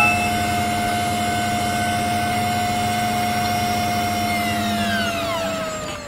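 A steady mechanical whine with a lower hum, which winds down near the end, its pitch falling and its level dropping.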